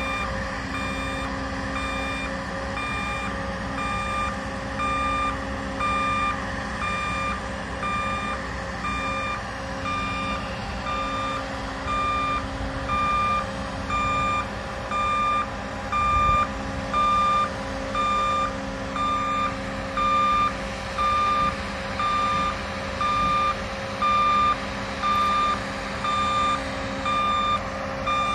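Travel warning alarm on a rubber-tyred girder-carrier gantry, beeping steadily about once a second over the continuous drone of its power unit as it moves carrying a concrete box girder. The beeps grow louder from about the middle on.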